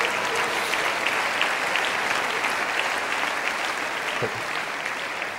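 Large theatre audience applauding: a dense, steady clatter of clapping that thins a little toward the end.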